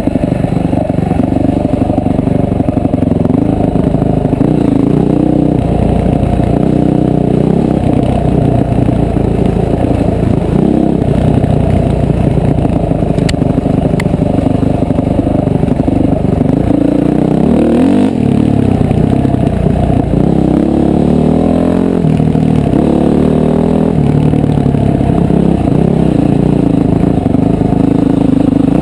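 Honda CRF450R dirt bike's single-cylinder four-stroke engine running loud under way, its pitch rising and falling as the throttle is opened and closed, with sharper rises and falls about two-thirds of the way through.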